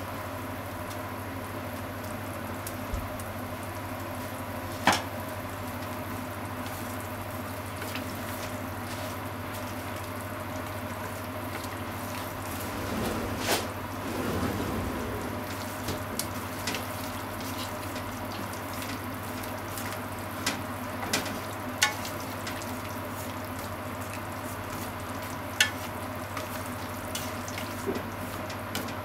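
Ground chicken bubbling and sizzling in broth in a frying pan, with a steady low hum underneath. Scattered sharp clicks, some of them chopsticks knocking against the pan as it is stirred.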